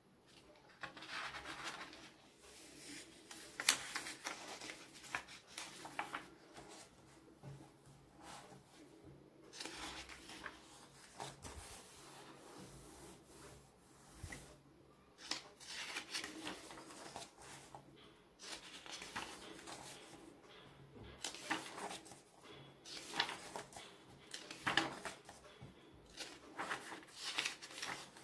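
Paper pages of a paperback comic book being turned and flipped by hand: a string of irregular rustles and swishes, with a few sharper snaps of paper.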